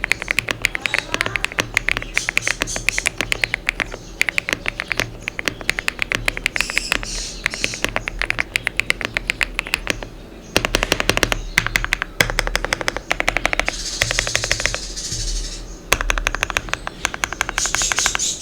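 Fast typing on a Mechlands Vibe99 full-size mechanical keyboard: rapid runs of keystrokes with a deep, thocky sound, breaking off briefly about ten seconds in and again near sixteen seconds. Its stabilizers are well tuned, with no rattle.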